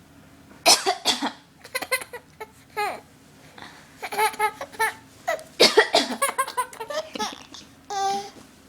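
A woman coughs in short sharp bursts, and a baby answers with high-pitched laughter. Coughs and laughs alternate several times.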